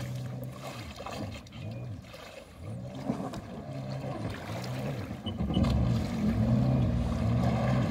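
Jet ski engine running at low speed, its pitch rising and falling again and again as the throttle is worked, louder from about two-thirds of the way in.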